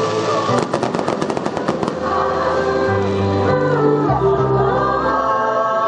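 Rapid crackling of fireworks for about the first two seconds, over music; then a choir singing long held notes with accompaniment.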